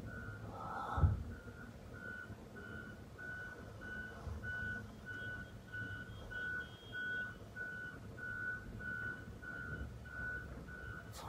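An electronic alarm beeping at one steady pitch, short even beeps a little under two a second, like a reversing alarm. A dull thump about a second in.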